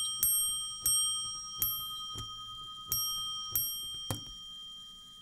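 Meccano clock strike mechanism's hammer striking a dome bell six times, about every two-thirds of a second, each ring running into the next, as it strikes the hour. About four seconds in there is a dull clunk as the striking stops, and the bell keeps ringing as it fades away.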